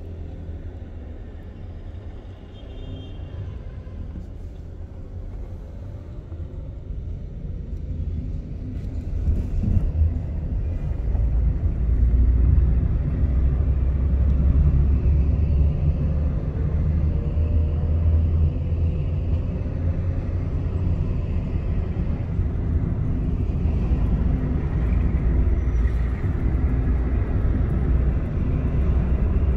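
Steady low rumble of a car driving, heard from inside the cabin: engine and road noise. It grows louder about ten seconds in and then holds steady.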